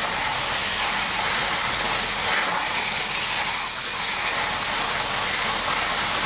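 Steady hiss of a water spray rinsing cleaner and loosened bug residue off a car's front bumper.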